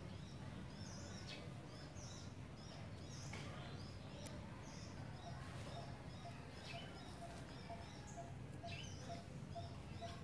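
Outdoor ambience with small birds chirping now and then over a low steady hum; from about halfway through, a quick evenly repeated call note joins in.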